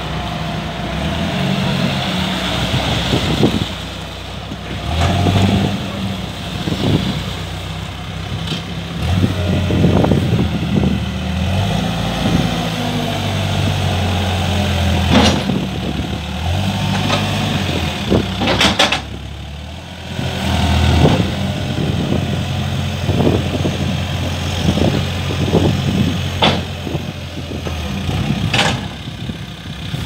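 New Holland B115B backhoe loader's diesel engine running and revving up and down repeatedly as the hydraulics raise and lower the front loader bucket. A few sharp knocks stand out along the way.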